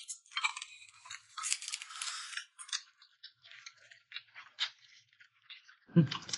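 Close-up tearing of a braised roast chicken by hand, with crackly ripping of skin and meat for the first couple of seconds, then scattered wet smacks and chewing clicks. A brief louder low sound comes about six seconds in.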